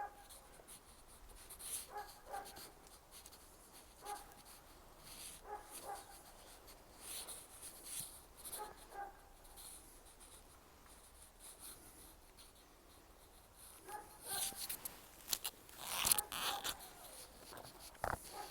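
Short, faint animal calls repeated every second or two, with louder rustling bursts about two-thirds of the way through.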